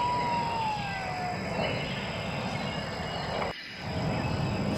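Dragonfly sound effect: a steady rushing buzz, with a whistle-like tone that rises and falls once near the start. The sound breaks off briefly about three and a half seconds in.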